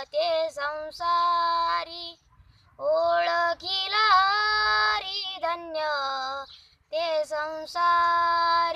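A boy singing a Marathi devotional abhang solo in a high, clear voice, holding long notes with a slight waver and pausing twice for breath.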